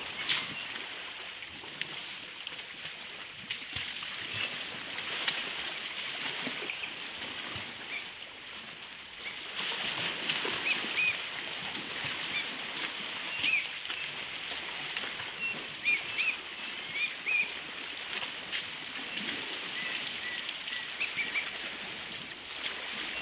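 Outdoor ambience: a steady high hiss that grows louder about halfway in, with short bird chirps scattered through the second half.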